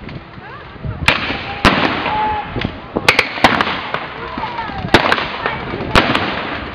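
Blank gunfire in a battle reenactment: about seven sharp single shots at uneven intervals, three in quick succession around the middle, each with a short tail of echo.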